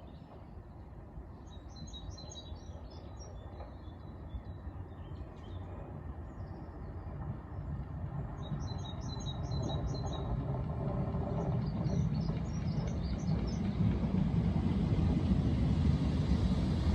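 A train approaching the station, its low rumble growing steadily louder throughout. Small birds chirp in short bursts over it during the first two-thirds.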